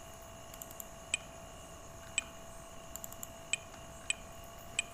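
About half a dozen sharp, single computer mouse clicks, spaced roughly a second apart with a quick cluster near the middle, as code is selected on screen. A faint steady electrical hum runs underneath.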